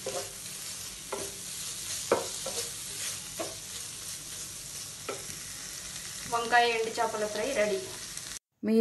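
Wooden spatula stirring and scraping an eggplant and dried-anchovy fry in a nonstick pan, the oil still sizzling steadily underneath, with a few sharper scrapes. Near the end a brief wavering pitched sound rises above the stirring, and then the sound cuts off suddenly.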